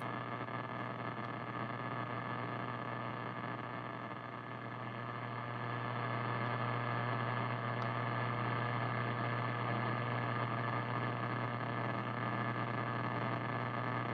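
Power-line RFI from arcing lightning arresters, heard as steady buzzing static from a Yaesu transceiver on 6 meters. It grows louder about five seconds in as the beam antenna swings toward the source, near S9.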